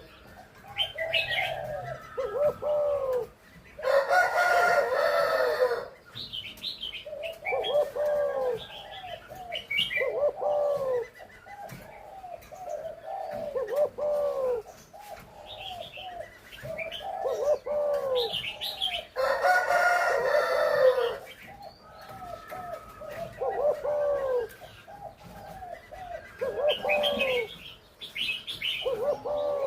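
Spotted dove cooing: short, arching coo notes repeated in phrases again and again. Twice a louder, longer call of about two seconds breaks in, roughly fifteen seconds apart.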